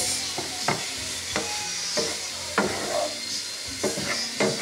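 Wooden spoon stirring and scraping ground turkey around a nonstick sauté pan, in regular strokes a little under two a second, over a steady sizzle of the meat frying.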